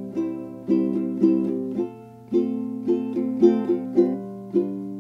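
Background music: a light tune on a plucked-string instrument, notes picked several to the second, with a brief dip about two seconds in.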